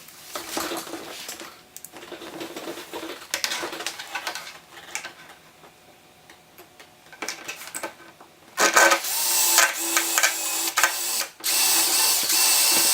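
Power drill with a 1/8-inch bit drilling pilot holes, running in two steady bursts of a few seconds each in the second half. Before that come scattered clicks and rattles of the drill being handled.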